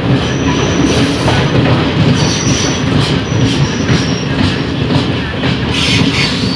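DEMU train running, heard from a coach's open window: a steady rumble of wheels on rail with faint clicks, and short high wheel squeals three times in the first four seconds.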